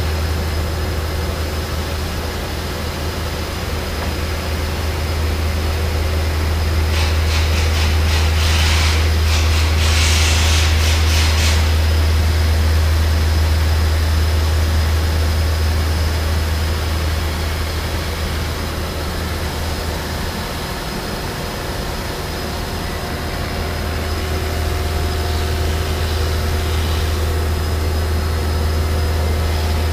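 ESCO PM III 1530 abrasive-wire CNC profile saw running as it cuts a dense polyisocyanurate foam block, a steady low machine hum that slowly swells and eases. A hiss rises for a few seconds starting about seven seconds in.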